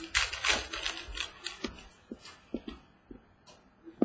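Prizm football trading cards handled on a table: a rustle of cards being sorted through the hands in the first second or so, then scattered light clicks and taps as cards are flicked and set down, with a sharp tap near the end.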